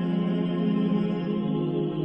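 Background music: slow ambient new-age music of held, drone-like tones.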